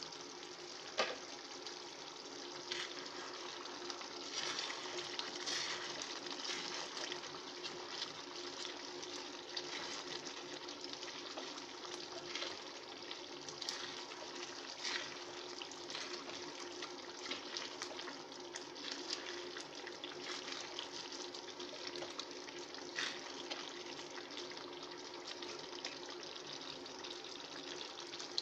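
Chicken korma simmering in an open steel pan: a steady bubbling sizzle with frequent sharp pops, over a steady low hum. A sharp clack about a second in is the loudest sound.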